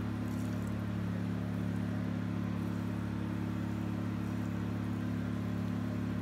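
Steady low hum of a diode laser hair removal machine's cooling unit running, with several fixed low tones that do not change.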